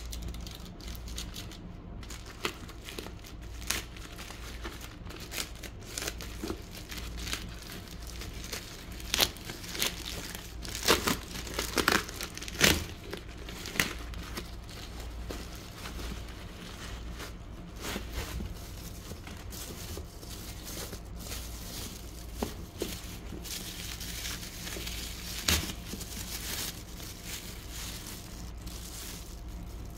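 Hands tearing open a black plastic bubble mailer and crinkling a clear plastic bag, an irregular run of crackling rustles and sharper tears, loudest about ten to thirteen seconds in. A steady low hum runs underneath.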